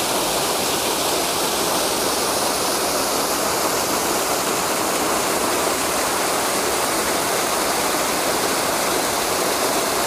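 Waterfall heard from close by: water pouring over a rock ledge and crashing onto rocks and into the plunge pool, a steady, unbroken rush.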